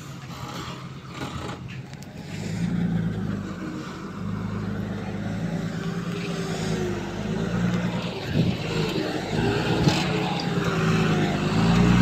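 Diesel engine of heavy earthmoving machinery running, growing louder about two and a half seconds in, with a wavering whine above it and two sharp knocks in the second half.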